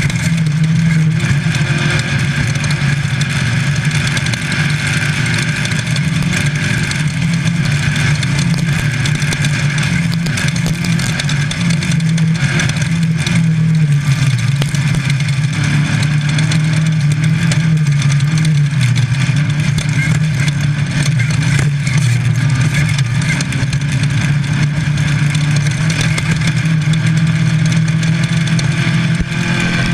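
Class 5 Baja Bug's air-cooled VW engine running hard at racing speed, heard from inside the car, its pitch rising and dropping with throttle and gear changes, over a steady rush of off-road driving noise.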